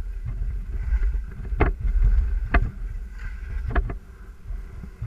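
Skis and poles moving through snow, with a low wind rumble on the microphone and three sharp clicks about one and a half, two and a half and four seconds in; the rumble drops away near the end.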